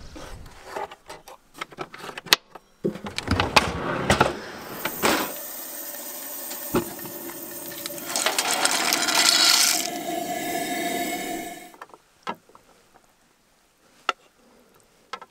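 Clatter of cookware for the first few seconds, then a two-burner camping gas stove burning with a steady hiss and a faint hum for about seven seconds until it cuts off. After that come a few light clicks as pasta is spooned from the pot onto a plate.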